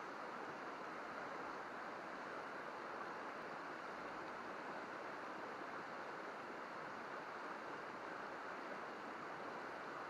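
Shallow river babbling over rocks: a steady, even rush of water.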